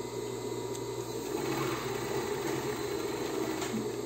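Industrial flatbed coverstitch machine running with a steady hum.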